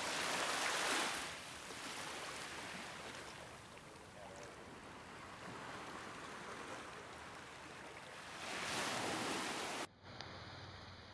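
Small surf washing in the shallows around wading legs, with louder surges of wash near the start and again about nine seconds in. The sound drops away abruptly near the end.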